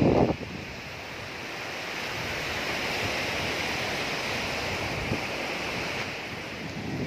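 Ocean surf breaking and washing up a sandy beach: a steady rush of waves that swells gently, with wind buffeting the microphone.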